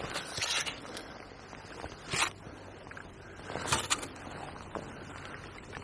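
A few brief rustling and scraping handling noises, three short ones spread through a few seconds, over a faint steady outdoor hiss.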